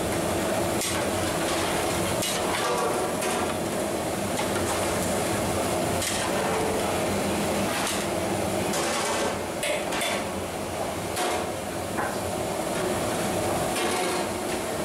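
A long metal ladle knocking and scraping against the sides of a large metal cooking pot as it stirs wet rice, in irregular clanks over a steady background noise.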